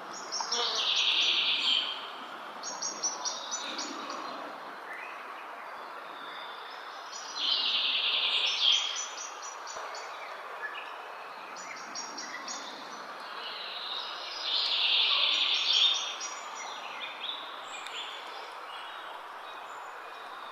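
A wild songbird singing loud, repeated phrases with fast high trills, one about every seven seconds, with softer calls between them over steady outdoor background noise.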